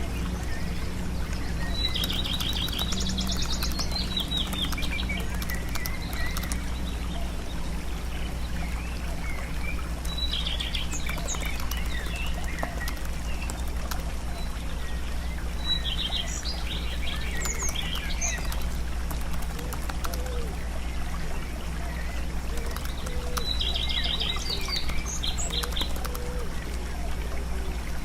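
Small birds chirping and twittering in short bursts, four times, over a steady low hum.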